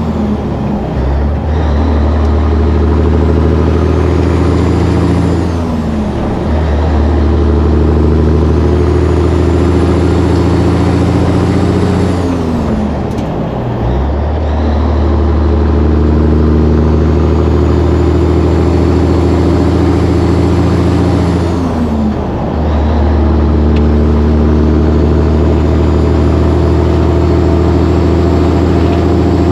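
Caterpillar 3406B diesel of a cabover Peterbilt semi pulling hard through the gears. The engine note climbs, then drops with a brief dip at each upshift, four times about eight seconds apart, with a faint high whine that rises and falls along with the engine.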